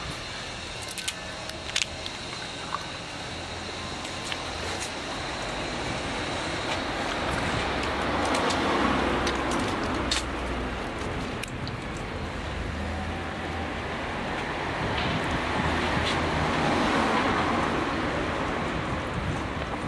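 Street traffic: road noise from passing cars, swelling twice, once around the middle and once near the end, with a few small clicks over it.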